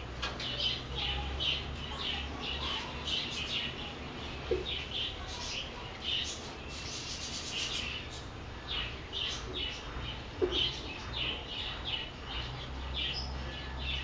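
Purple sunbird chirping: a rapid run of short, high chirps, several a second and unbroken, over a steady low hum.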